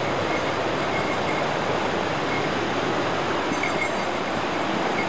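Steady rushing of a mountain waterfall, Hikari-daki, pouring water without a break.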